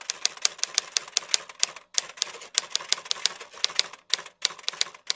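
Typewriter keystroke sound effect: rapid clacks at about six a second, with two short pauses.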